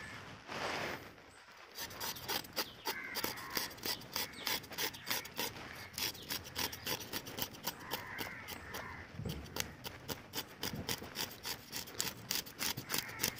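Knife scraping the scales off a whole fresh fish in rapid repeated strokes, several a second, starting about two seconds in. The scales are stubborn because the fish is very fresh.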